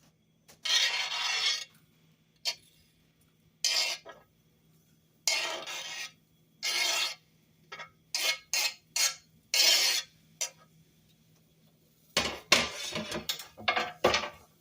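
A utensil scraping chopped leek from a plate into a pot: a series of separate scraping strokes, each up to about a second long, then a quicker run of scrapes and knocks near the end.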